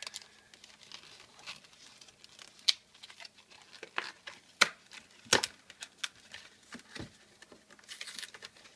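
Foil wrapper of a Pokémon TCG Flash Fire booster pack crinkling and tearing as it is opened by hand, carefully, in a series of separate sharp crackles.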